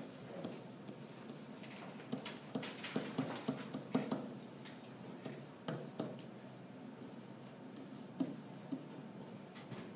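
Pen writing on an interactive whiteboard: a run of short taps and scrapes as letters are written, thickest in the middle of the stretch, with a few more near the end.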